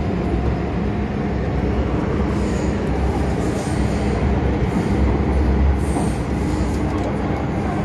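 MTR M-Train electric multiple unit running underground, heard from inside a passenger car: a steady loud rumble of wheels and car body, with a few brief high-pitched wheel squeals.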